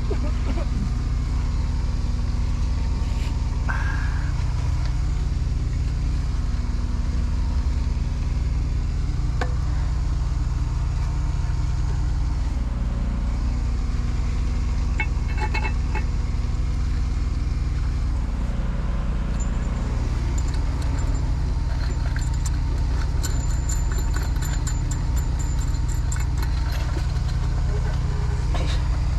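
Diesel engine of a mini excavator running steadily, its pitch shifting slightly a couple of times, with a few short metallic clicks about halfway through.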